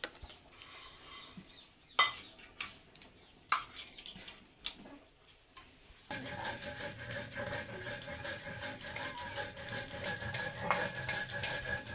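A steel cup and tongs clink a few times against metal. From about six seconds in there is a steady gritty scraping as roasted cumin seeds are crushed by hand with a stone on a grinding slab.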